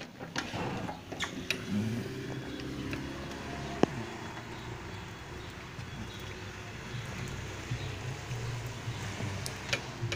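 A USPS mail truck's engine running at a steady idle close by. A few knocks and clicks come early on, with one sharp click about four seconds in.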